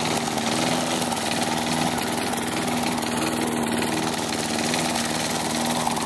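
Tecumseh push-mower engine running steadily at a moderate, lowered speed while it mows leaves. The engine is worn out, with shot rings and heavy blow-by.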